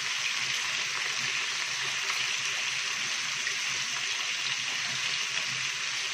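Raw chicken pieces sizzling steadily in hot oil in a frying pan as they sear and brown, a constant crackling hiss of oil spattering around the meat.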